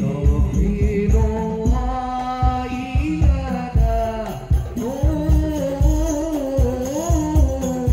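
Hadrah ensemble performing: several men singing a devotional melody into microphones over a steady beat of frame drums, with tambourine jingles.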